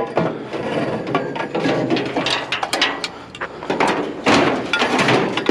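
Thin sheet-metal panels clattering, knocking and scraping as they are handled and loaded onto a trailer, a dense run of irregular metallic knocks.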